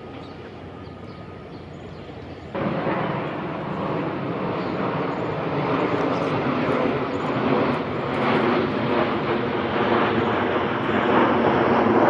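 Jet airliner passing low overhead. Its rushing engine noise comes in suddenly about two and a half seconds in and grows louder toward the end.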